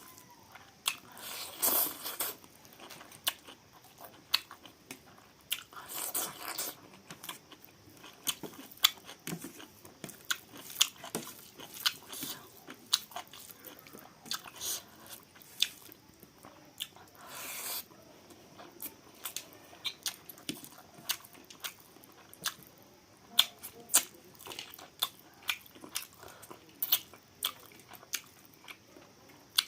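Close-up eating sounds of a person biting and chewing chicken: irregular wet clicks and smacks throughout, with a few longer, louder sounds at about two, six and seventeen seconds in.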